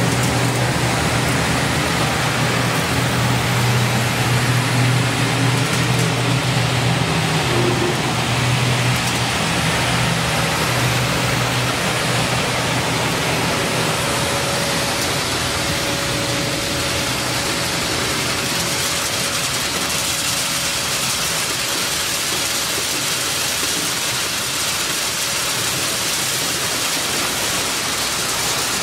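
PD2 maize grits milling machine running: a steady low motor hum under a loud, even hiss of corn going through the mill. The hum weakens about halfway through while the hiss stays.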